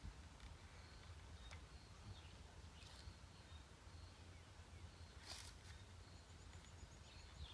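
Near silence: faint outdoor ambience with a low rumble, a few faint bird chirps and some light clicks.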